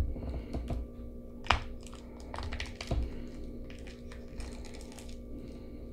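Irregular light clicks and taps of a hobby knife working at a small clear plastic bag held in the hand, cutting it open, with a couple of sharper taps about one and a half and three seconds in.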